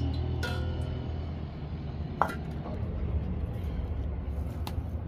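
Aluminium cooking-pot lid clinking against the metal pot, one sharp ringing clink about two seconds in and lighter clicks before and after, over a steady low rumble from the wood fire under the pot.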